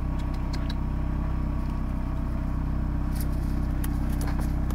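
Steady low hum of an idling vehicle engine, even and unchanging, with a few faint clicks and rustles in the leaf litter about three seconds in.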